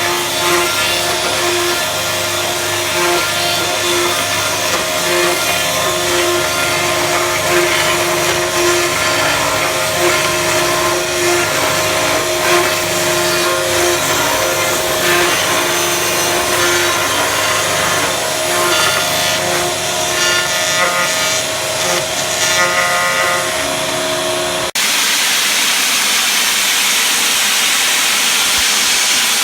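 A power tool runs steadily with a whining tone over a rasping cutting noise. About 25 seconds in it cuts off suddenly and a steady hiss takes over.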